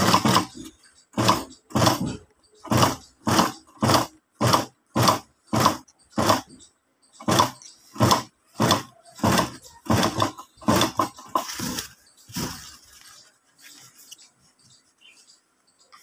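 Zoje industrial sewing machine stitching in short bursts, roughly one to two a second, then stopping about twelve and a half seconds in.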